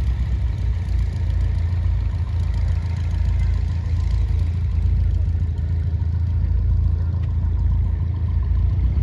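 Steady low engine rumble running without a break.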